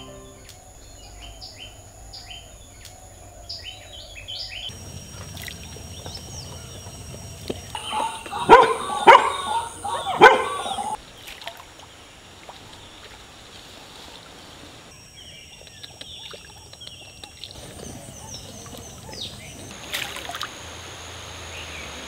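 Small birds chirping, then a dog barking three times, sharply and loudly, about halfway through; a few more bird calls follow over faint outdoor ambience.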